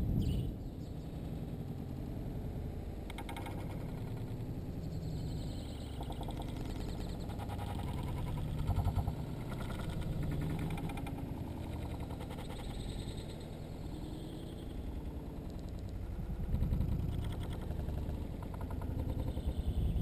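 House sparrows at a seed feeder, with the audio slowed down along with the 120 fps footage: a low, murky rumble with faint, drawn-out, deepened chirps and wing flutters, swelling a little now and then.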